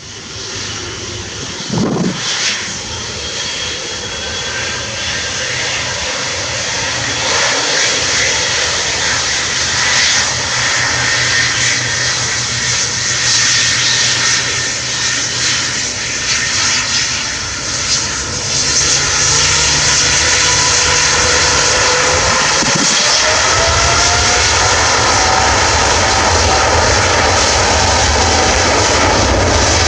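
Jet airliner taking off, engines at takeoff power: a loud, continuous roar that builds over the first few seconds. A whine rises slowly in pitch past the middle, and a deeper rumble grows stronger in the last several seconds.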